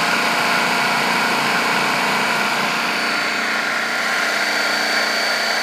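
Electric blender motor running at a steady speed, blending or grinding spice rub ingredients in its jar.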